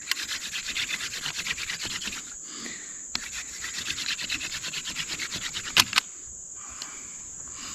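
Hand drill for fire making: a dog fennel spindle spun between the palms, its tip rubbing in a cedar fireboard with a fast rhythmic rasping, in two runs with a short break about two seconds in. Two sharp knocks near the end of the second run. A steady high insect trill, like crickets, underneath.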